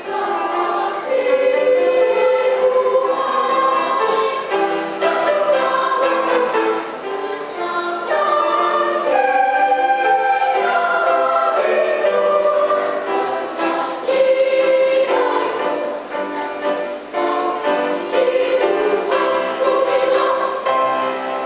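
Children's choir singing in several parts, with long held chords.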